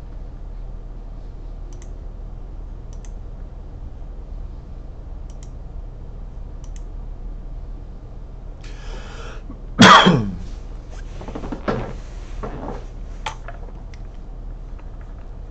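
A person coughs once loudly about ten seconds in, after a short intake of breath, then clears their throat a couple of times more softly, over a steady low hum.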